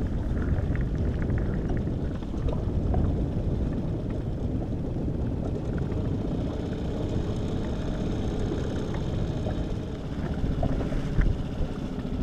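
Mercury outboard motor running steadily at slow trolling speed on a small inflatable boat, with water washing along the hull.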